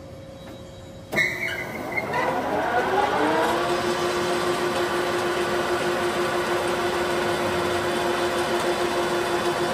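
LeBlond Makino engine lathe's spindle starting up about a second in. Its geared headstock whine rises in pitch for about two seconds as the spindle comes up to speed, then holds a steady whine.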